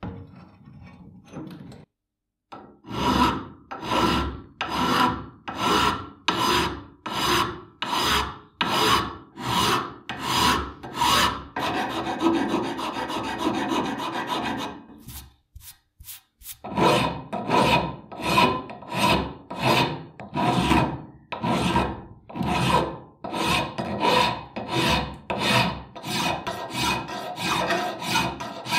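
Flat hand file rasping across the cast metal body of a saw tooth setter in steady push strokes, about one and a half a second. A short run of quicker strokes is followed by a pause past the middle, then the slower strokes resume.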